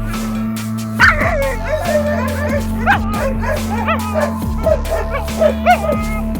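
West Siberian laika barking and yelping repeatedly in short, high calls, the first loud bark about a second in, over steady background music.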